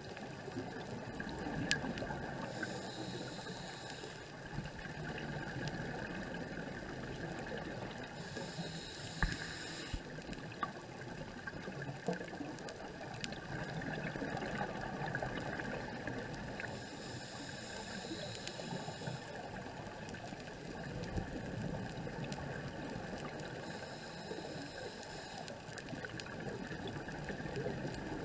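Underwater ambience picked up through a dive camera's housing, with a scuba diver breathing through a regulator: four breaths with a high hiss, roughly every seven seconds, and a few faint clicks.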